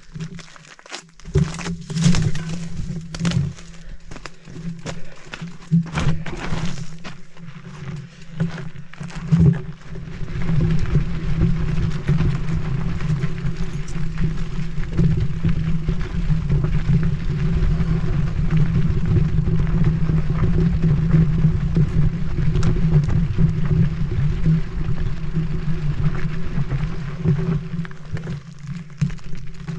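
Mountain bike riding down a rocky dirt trail. For the first ten seconds or so the bike clatters and knocks over rocks and roots. After that the tyres on dirt and the wind on the camera make a steady rushing noise.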